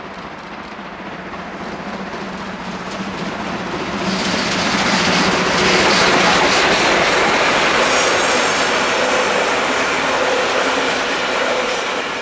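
DB class 01 steam locomotive 01 118 running past with a passenger train, its exhaust beating faintly. About four seconds in the sound grows much louder and brighter as the coaches roll by with wheel clatter on the rails and a faint wheel squeal.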